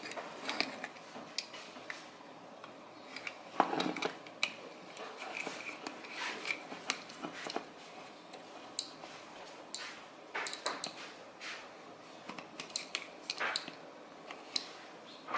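Hands handling a Maglula UpLULA pistol magazine loader and its packaging: scattered light clicks and clinks of hard plastic and metal with some rustling, and one louder knock about three and a half seconds in.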